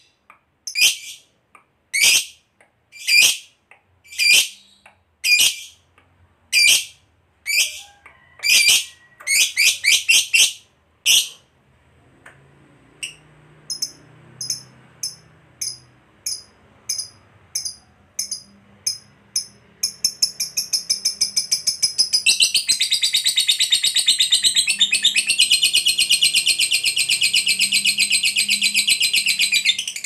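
Lovebird calling: shrill, piercing calls about once a second, quickening after about eight seconds. After a quieter stretch of short chirps it breaks, about twenty seconds in, into a long, rapid chattering trill, the 'ngekek panjang' song prized by lovebird keepers.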